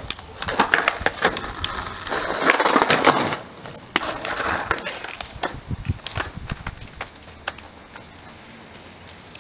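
Skateboard rolling on a tarmac street, with repeated clicks and knocks from the board and the rider's crutch tips on the road. The rolling is loudest about two to three seconds in and grows fainter near the end.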